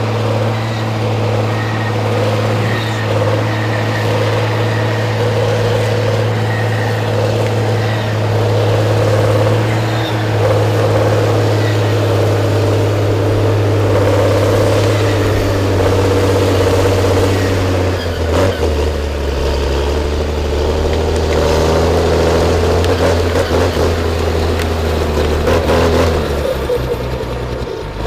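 Diesel engine of a heavy forestry machine running steadily under load. About two-thirds of the way through, its note drops lower, and a few short knocks are heard.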